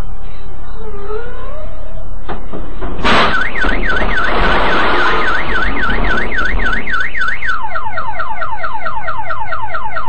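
A loud crash as a truck strikes the car, then a car alarm goes off: a fast up-and-down wail, which switches a few seconds later to a quicker run of repeated falling chirps.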